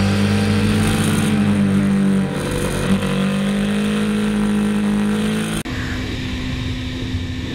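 Kawasaki Z800 inline-four engine running steadily at high revs, the pitch easing down and back up about two and a half seconds in. Near the end the sound cuts abruptly to a quieter, steady engine note with wind noise.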